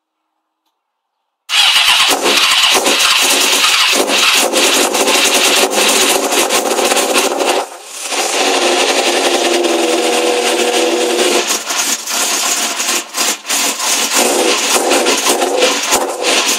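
Electric starter cranking the fuel-injected inline-four of a 1998–99 Suzuki GSX-R750 SRAD on its first start attempt after a rebuild. The cranking starts about a second and a half in, dips briefly about eight seconds in, then carries on and stops suddenly near the end.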